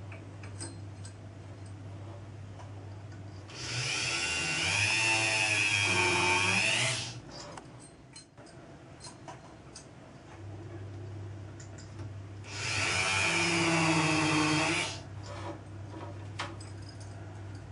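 A drilling machine's bit cutting into a metal flywheel twice, each cut about three seconds long with a wavering, squealing pitch. Between the cuts a steady low machine hum runs, dropping out for a few seconds in the middle.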